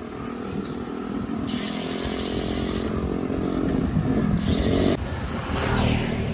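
A motorcycle engine running close by, its buzzing note getting louder to a peak about four to five seconds in, over wind buffeting on a moving bicycle-mounted microphone.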